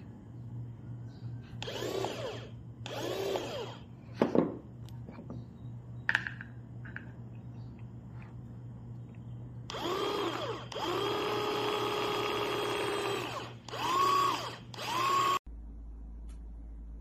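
Small cordless electric food chopper's motor whirring in short pulses, its pitch rising as it spins up and falling as it stops, several times over, with one longer steady run of a few seconds. A couple of sharp clicks fall between the runs.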